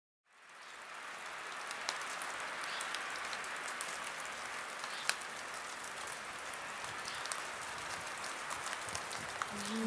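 Steady rain-like patter with scattered louder drops, fading in over the first second. Steady musical tones begin just before the end.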